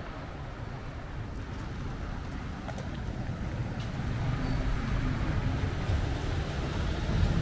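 Street traffic noise: cars running along a town road, a steady low rumble that grows louder toward the end.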